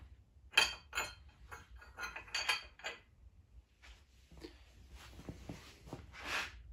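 A quick run of sharp metallic clinks and clanks from a steel wrench on the crankshaft snout bolt of a bare engine block, as it is worked and then let hang. The loudest clink comes about half a second in, and fainter knocks follow.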